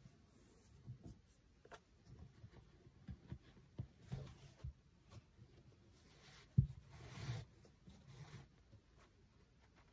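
Faint rustling and rubbing of a flat cotton shoelace being drawn by hand through the metal eyelets of a canvas sneaker, with scattered soft taps; the sharpest tap comes about six and a half seconds in.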